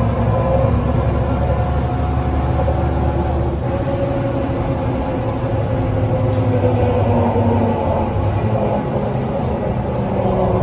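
Mercedes-Benz Citaro city bus heard from inside the cabin while driving: an unusually loud axle whine over the low drone of its OM906hLA six-cylinder diesel, the whine sliding down in pitch in the middle stretch.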